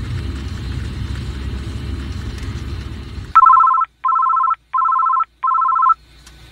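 Car engine rumbling inside the cabin. After about three seconds it gives way to a Nokia mobile phone sounding its alert: four short bursts of a rapid two-note electronic trill with short gaps between them.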